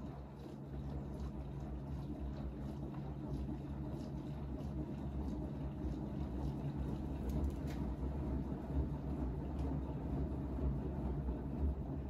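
Bosch front-loading washing machine in its wash cycle: the drum turning with a low motor hum while soapy water sloshes around the pillows inside.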